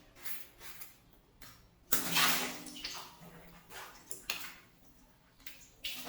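A water balloon bursting: a sudden sharp burst about two seconds in followed by water splashing that fades over about a second, with several smaller splashes before and after.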